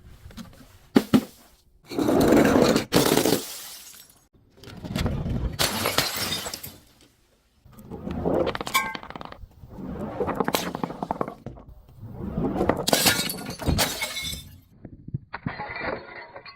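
Glass bottles being crushed and shattering: a series of separate crunching, cracking breaks, one every couple of seconds.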